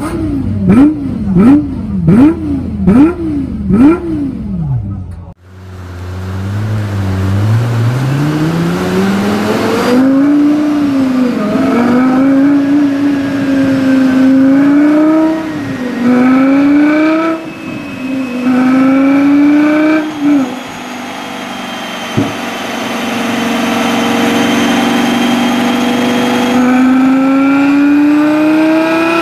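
Lexus LFA's 4.8-litre 1LR-GUE V10 revved in about six quick, sharp throttle blips within four seconds. A second LFA is then revved up slowly and held at high revs with repeated dips, settles back to idle about 20 seconds in, gives a single sharp click a little later, and climbs slowly again near the end.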